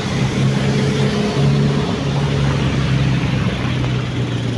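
Road traffic with a large vehicle's engine droning as it passes, its low hum dropping in pitch about three and a half seconds in. No horn sounds.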